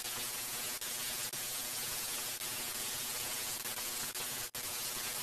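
Handheld electric belt file (power file) running and sanding the edge of a plywood pistol grip to round it off, a steady hiss. It cuts out for an instant about four and a half seconds in.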